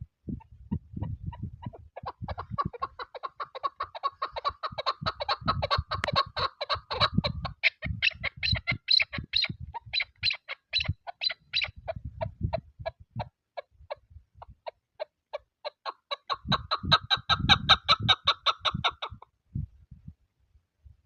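Chukar partridge calling: a long series of rapid, repeated chuck notes, strongest in the first few seconds and again from about 16 s, stopping a couple of seconds before the end. Irregular low thumps of wind buffeting the microphone run underneath.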